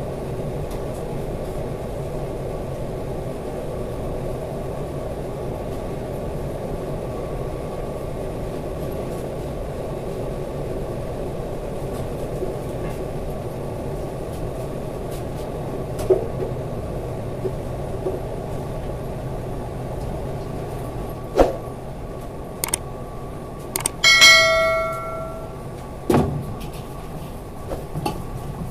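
Steady hum of kitchen machinery with a few scattered knocks. About four seconds before the end comes one loud ringing metal clang that dies away over about a second.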